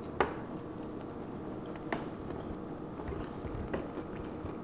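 A person eating close to the microphone: a sharp bite about a quarter second in, then chewing with a few fainter clicks and crackles.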